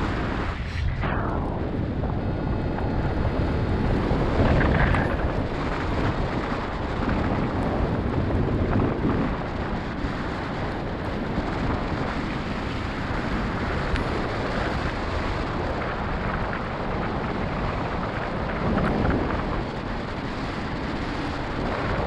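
Wind noise on a GoPro's microphone from the airflow of paraglider flight: a steady deep rushing that swells and eases in gusts.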